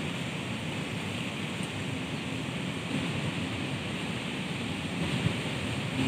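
Strong wind blowing through trees and shrubs: a steady rushing of leaves and branches, with one brief thump about five seconds in.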